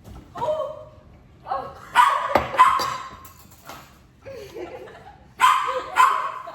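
A dog barking several times in short calls, some in quick pairs.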